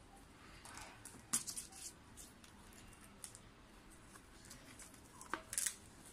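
Soft rustling of a fabric-and-elastic belt being unfolded by hand, with a few sharp clicks and scrapes, the sharpest about a second in and another pair near the end.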